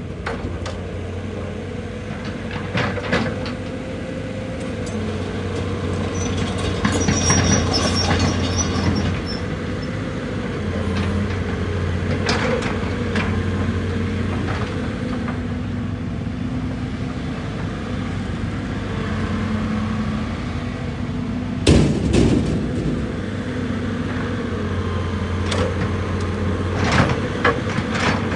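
Excavator's diesel engine running steadily, with scattered clanks and knocks of the machine at work; the loudest knock comes a little over twenty seconds in.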